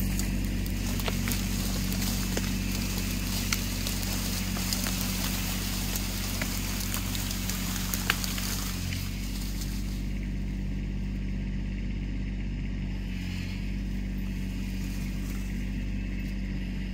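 Kubota B2601 compact tractor's three-cylinder diesel running steadily under load while it drags a felled tree by a chain. A couple of sharp cracks stand out, one about 3.5 seconds in and one about 8 seconds in.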